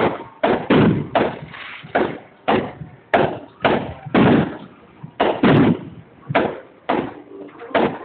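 Aerial fireworks going off: a rapid, irregular string of loud bangs, about two a second.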